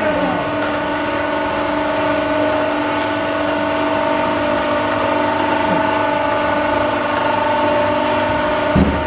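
The pan mixer of an interlock brick machine running with a steady mechanical hum and whine as the mixed fly-ash and cement material is discharged through its side door. There is a short low thump near the end.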